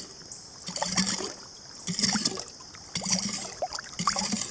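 Digging a hole in a shallow riverbed to recover a metal-detector target: water sloshes and gurgles in four regular surges about a second apart, one with each stroke.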